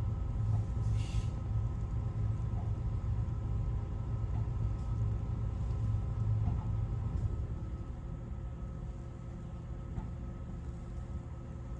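Cabin hum of a Keio 5000 series train standing still at a stop signal: a steady low rumble from the onboard equipment with a few faint steady whining tones. The rumble eases about eight seconds in.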